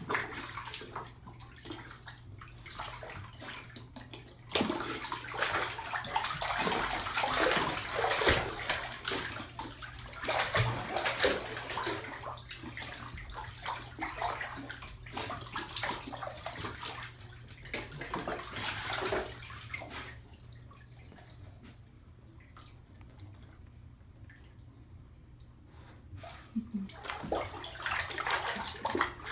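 Bathwater sloshing and splashing as a golden retriever puppy paddles and turns circles in a full bathtub. The splashing is heaviest through the middle, drops to quiet lapping for several seconds, then picks up again near the end.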